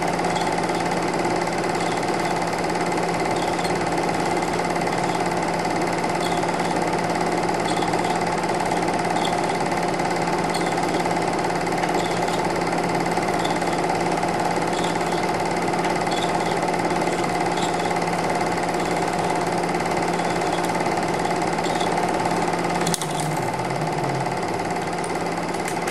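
Super 8 film projector running: a steady mechanical whir and hum with faint regular ticking from the film transport. About 23 seconds in there is a click, and the low hum changes pitch.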